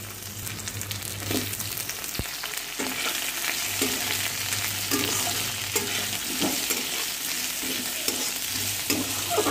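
Red onion wedges frying in hot oil in a steel kadai, sizzling steadily while a metal spatula stirs and scrapes them in repeated strokes.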